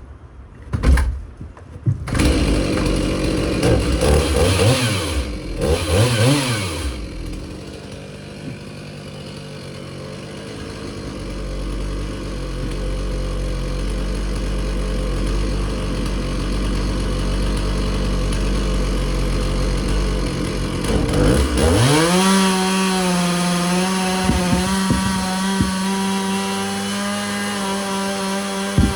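Chainsaw engine starting about a second in, revved up and down several times, then idling low for a long stretch. About three-quarters of the way through it opens up to a steady high-pitched run at full throttle.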